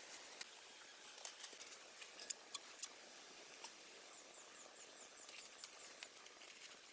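Faint rustling of banana leaves being handled, with a few sharp clicks about two to three seconds in, then small ticks and crackles from a little fire of dry leaves and twigs burning.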